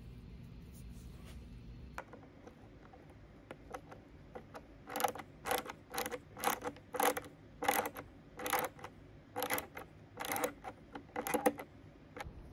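Cordless drill-driver whirring in about a dozen short bursts, one or two a second, driving small screws to fasten a metal cabinet catch.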